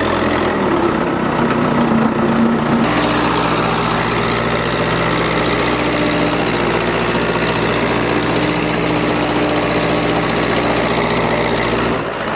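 Tractor engine running steadily and loud, its note changing about three seconds in, then dropping away near the end.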